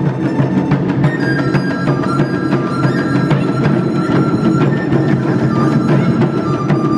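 Taiko drums beating with a flute playing over them; from about a second in the flute holds long notes that step gradually downward in pitch.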